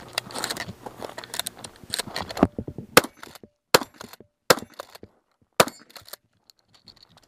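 Remington 870 Tactical 12-gauge pump shotgun firing about five shots over roughly three seconds, starting about two and a half seconds in, with the pump racked between shots to eject the spent shells.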